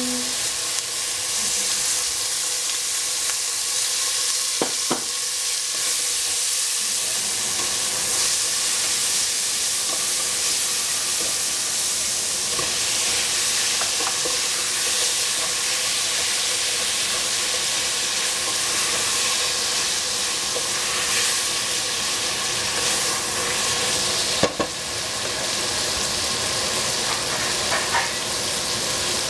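Food sizzling in hot oil in a pan, a steady frying hiss, with a couple of brief knocks of a utensil against the pan.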